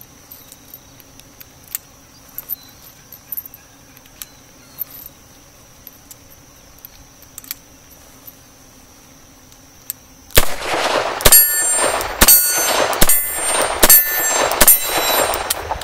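Colt Diamondback .38 Special revolver fired about six times, roughly a second apart, starting about two-thirds of the way in, each shot followed by ringing echo. Before the shots, only faint clicks as the revolver is handled.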